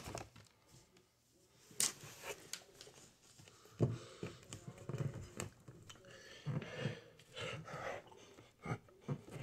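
Irregular bumps, clicks and rubbing of a handheld phone against bare skin, mixed with hard breathing from exertion.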